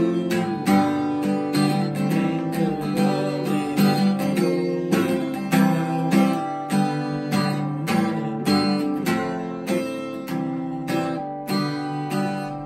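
Steel-string acoustic guitar strummed in a steady rhythm, the chords changing every second or so.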